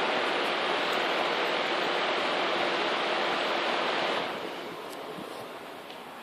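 Steady rush of air from a 1997 Lennox Elite Series heat pump's outdoor fan, heard close. It becomes clearly quieter a little after four seconds in.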